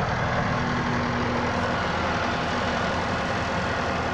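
Diesel engine of a skid steer loader running steadily at idle, heard from the operator's seat as an even, unchanging drone.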